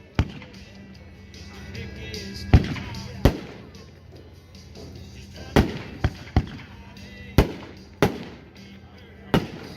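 Consumer fireworks going off: about nine sharp bangs at irregular intervals, some close together in quick pairs or threes. Background music plays underneath.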